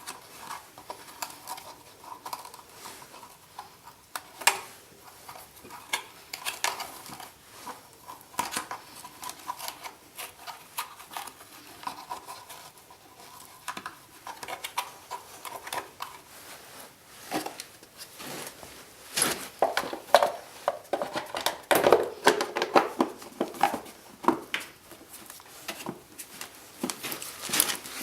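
Irregular metallic clinks, clicks and rattles of hand tools and small parts being handled while a carburetor is fitted to a 50cc moped. They are busiest about two-thirds of the way through.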